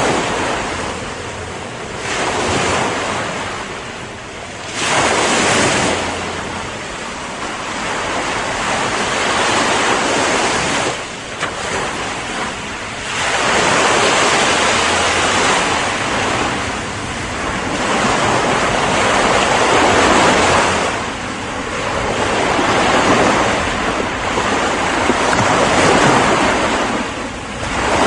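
Ocean waves breaking and washing on a shore, a continuous surf that swells and eases every few seconds.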